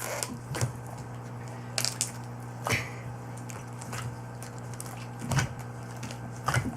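Homemade borax-and-glue slime being kneaded by hand in water, giving about six separate short wet squishes and crackles.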